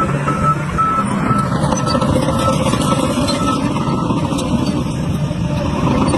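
Heavy diesel dump truck engine running with a steady, loud rumble. Short repeated high beeps sound through the first two seconds or so.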